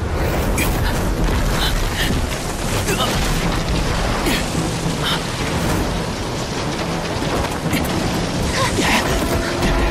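Animated battle sound effects: a dense, continuous rumble with repeated crashes and impacts about every second, over music.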